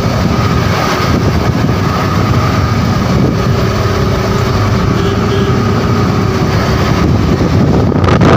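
Engine and road noise of a Mahindra pickup heard from inside the cab while it drives steadily along a highway. Near the end, wind buffets the microphone.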